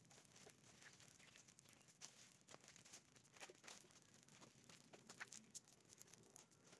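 Faint crackling of a burning pile of dry leaves and twigs, with many small irregular snaps.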